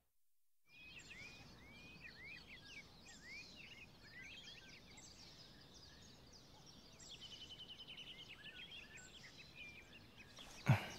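Faint songbirds chirping: short calls that glide up and down, with a quick trill about seven seconds in. One dull thump near the end.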